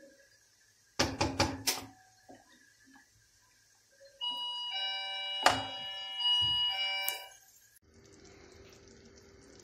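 A metal spoon knocking a few times against a stainless steel soup pot, then scraping around it while stirring, so that the pot rings with a steady metallic tone for about three seconds, with one sharper knock in the middle.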